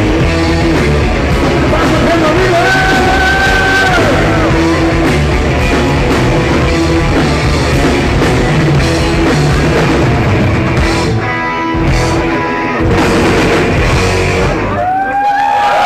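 Live rock band playing, with electric guitar and drum kit. The music drops out briefly twice near the end, before the final bars.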